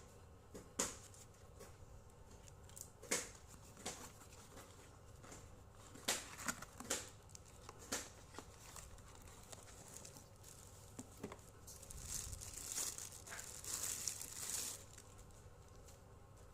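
Packaging being handled during unboxing: scattered sharp crinkles and clicks, then a longer stretch of denser rustling near the end.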